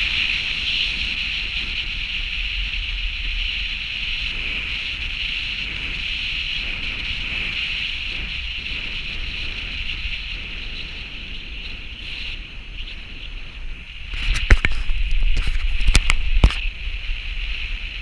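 Car driving down a winding mountain road: steady road and wind noise with a low rumble. About fourteen seconds in, a run of loud knocks and heavier rumbling lasts a couple of seconds, the loudest part.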